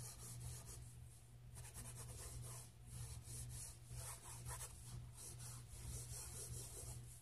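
Graphite pencil sketching light strokes on sketchbook paper: faint scratching that comes and goes with each stroke.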